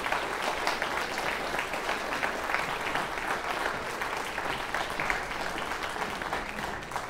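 Audience applauding steadily in a concert hall, easing off slightly near the end.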